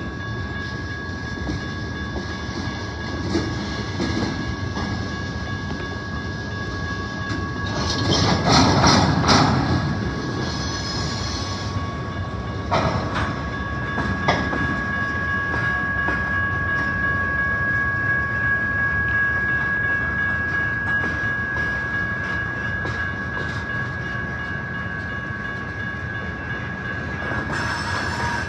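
Freight cars rolling past on the rails, their wheels rumbling and knocking over the track, with a louder burst of clatter about eight seconds in and a few sharp knocks a few seconds later. A steady high-pitched wheel squeal runs over it, growing stronger in the second half.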